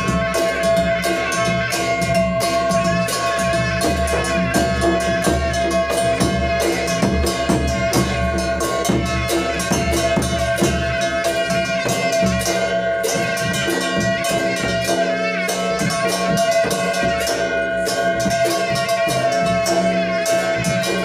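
Folk ritual music: large two-headed barrel drums beaten in a fast, dense rhythm, over a steady high tone that holds unbroken throughout.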